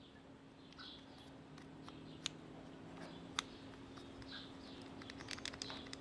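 Faint small plastic clicks and ticks as a removed Ford Duratec HE intake swirl-flap assembly is handled and its flap worked back and forth, the flap shifting with play in its worn plastic bearing; two sharper clicks in the middle and a quick run of ticks near the end, over a faint steady hum.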